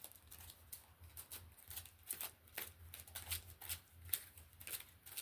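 A deck of oracle cards being shuffled and handled by hand: an irregular run of soft, quick card flicks and slaps, several a second.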